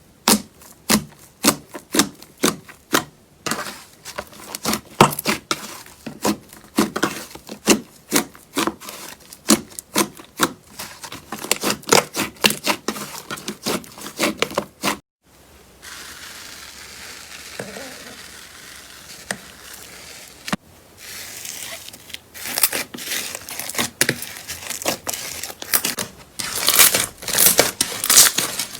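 Slime being pressed and squished by hand, making quick, irregular sticky pops and crackles. The pops stop abruptly about halfway through, giving way to a few seconds of soft, even rustling, then come back denser and louder toward the end.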